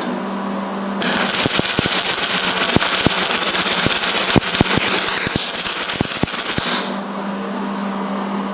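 MIG welding arc crackling and popping irregularly for about six seconds, starting about a second in, with the welder set too cold and the wire feeding too fast; the uneven spacing of the crackles is the sign that the wire speed is too fast. A steady hum runs underneath before and after the arc.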